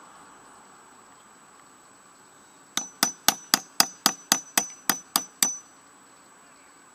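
Claw hammer tapping a metal pin into a small electric starter motor: about eleven quick metal-on-metal blows, roughly four a second, each with a short ring, starting a few seconds in.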